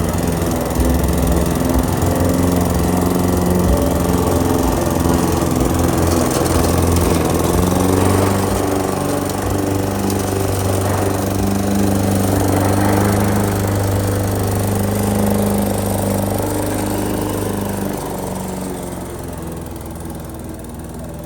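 Lawn mower engine running steadily, getting quieter over the last few seconds.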